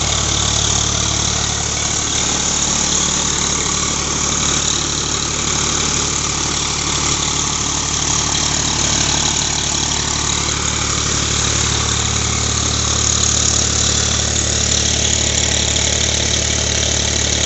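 Swaraj 735 FE tractor's three-cylinder diesel engine running steadily under load, driving a paddy-hulling mill. The mill's steady rushing noise is mixed in with the engine.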